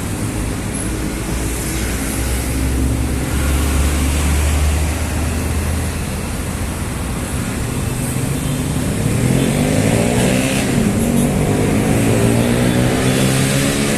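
Busy city road traffic: a deep engine rumble in the first half, then an engine speeding up from about nine seconds in, its pitch rising, over a steady wash of tyre and engine noise.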